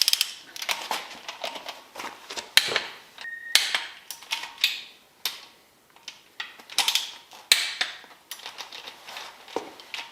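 Ratchet and wrench clicking in quick irregular strokes as the intake manifold bolts on a 402 big block Chevy are torqued in stages, with a brief high tone about three seconds in.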